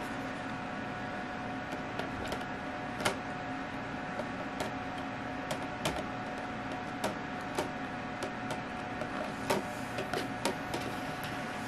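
Scattered light taps and clicks of a metal snake hook against a plastic deli cup and tub, over a steady background hum.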